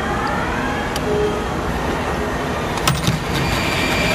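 Steady assembly-plant machinery noise with a few sharp clicks. Near the end a corded electric nutrunner whirs for about a second as it drives the steering-wheel retaining bolt.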